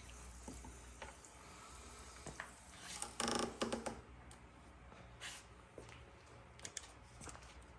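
Quiet handling sounds: scattered faint clicks and small knocks, with one louder scrape or clatter lasting about half a second, about three seconds in, over a steady low hum.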